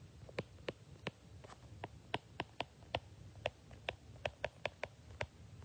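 A pen stylus tapping and clicking on a tablet while words are handwritten: an irregular run of sharp little ticks, about three a second.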